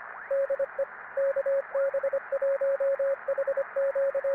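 Morse code (CW) beeping: a single mid-pitched tone keyed in dots and dashes over steady radio band hiss, with a few faint rising whistles in the hiss.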